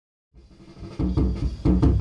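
A funk groove starts about a third of a second in, quietly at first and at full level from about a second in: a drum kit playing a steady beat of kick and snare hits over low held bass notes.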